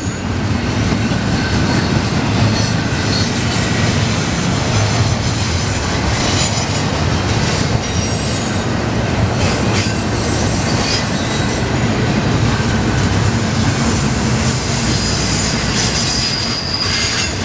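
Double-stack container freight train rolling past at close range: a steady, loud rumble of well cars on the rails, with brief high-pitched wheel squeals now and then and occasional clacks of wheels over rail joints.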